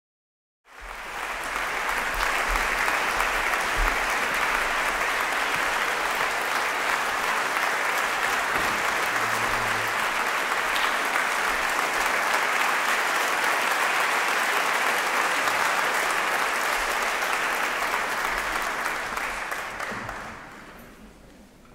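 Concert audience applauding. The applause starts suddenly about a second in, holds steady, then dies away near the end.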